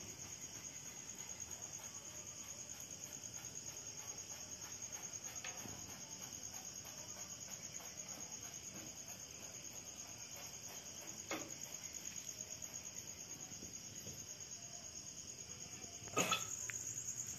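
A steady, high-pitched insect trill, pulsing rapidly without a break, with a few faint knocks and a louder brief knock near the end.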